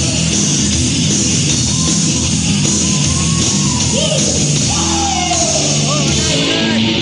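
Rock and roll band playing live and loud, with sliding pitched notes over a steady full band.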